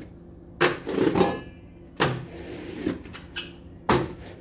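A run of sharp knocks and clanks of hard objects, about six in four seconds at uneven spacing, each ringing briefly off the hard walls and concrete floor of a kennel run.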